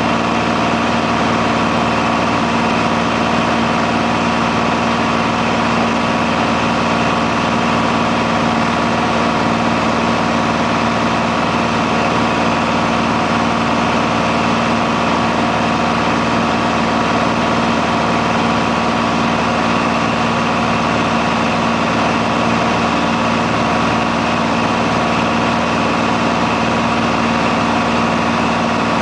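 Cessna 182's piston engine and propeller droning steadily in cruising flight, heard from inside the cockpit.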